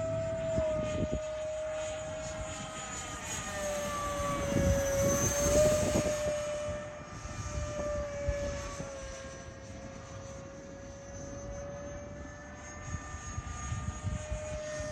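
90 mm Wemotec electric ducted fan of an RC L-39 Albatros jet whining steadily in flight, its pitch shifting slightly, loudest as the jet passes about five seconds in. Low gusty wind rumble on the microphone.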